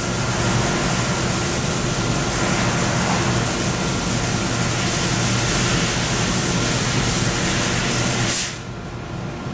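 Fibre laser cutting machine cutting sheet metal: a steady hiss from the cutting head with a machine hum under it. Near the end it breaks off with a short burst and the level drops.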